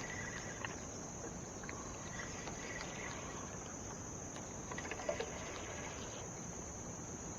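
Insect chorus: a steady, high-pitched drone throughout, with a couple of faint clicks about five seconds in.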